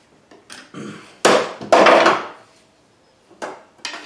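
A series of hammer blows on metal in a car's engine bay, about six or seven knocks, with two much louder blows a little over a second in, half a second apart, each leaving a short ring.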